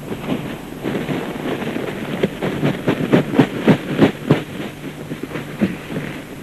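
Dry brush and dead stalks crackling and snapping as they are grabbed and torn up by hand, a quick irregular run of cracks that is thickest in the middle.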